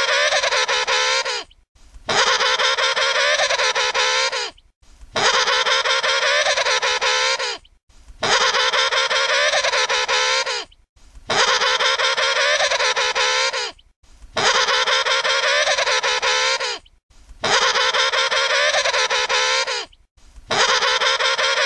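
Emperor penguin trumpeting call, the same call looped over and over: each is a loud, buzzy trumpet of about two and a half seconds with a wavering pitch, followed by a brief gap, repeating about every three seconds, seven times in all.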